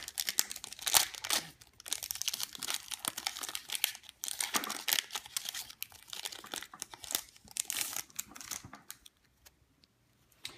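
Foil wrapper of a Pokémon booster pack crinkling and tearing as it is opened by hand, a dense crackle that stops about a second and a half before the end.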